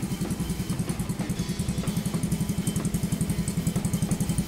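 Small single-cylinder engine of a 2019 WMX moped idling, a steady, rapid, even putter.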